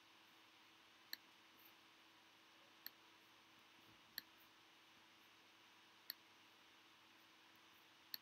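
Near silence with five faint, sharp single clicks of a computer pointer button, spaced one to two seconds apart, over a low steady hum and hiss.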